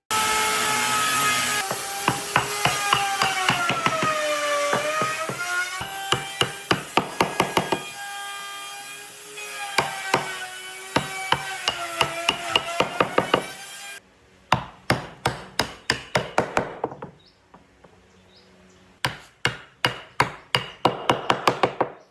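Rapid hammering on wood in bursts of quick, sharp strikes. Through the first half a steady tone runs underneath and dips and rises in pitch. Later the strikes come alone with short quiet gaps between bursts.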